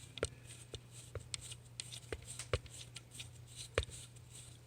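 Irregular small clicks and taps of hands handling a plastic bicycle spoke-light unit and its screws, about a dozen in all, the sharpest near the end. A steady low hum runs underneath.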